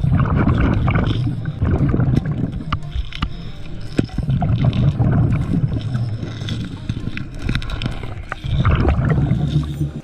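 Scuba regulator exhaust bubbles rumbling and gurgling as the diver breathes out, in three long surges, heard underwater through the camera housing, with a few sharp clicks of handling noise.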